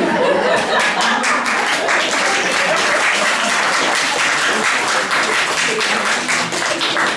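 Small seated audience applauding with dense, steady hand claps.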